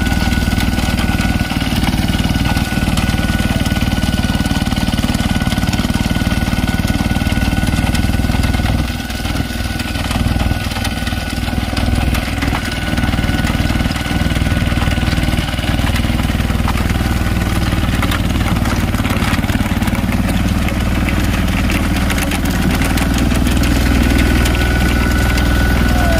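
Apollo mini tractor engine running steadily under load, driving a rotary implement that churns soil for earthing up sugarcane. A thin, steady high whine runs through the engine sound.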